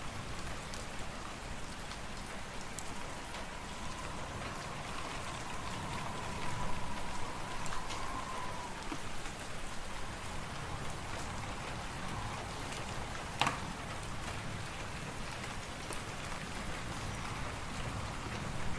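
Wood fire in a fireplace crackling over a steady hiss of wind, with a faint wavering whistle of wind for a few seconds and one sharp pop about two-thirds of the way through.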